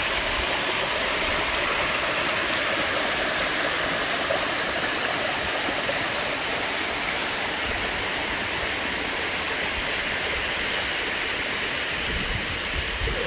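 A small mountain stream cascading over rock ledges: a steady rush of running water.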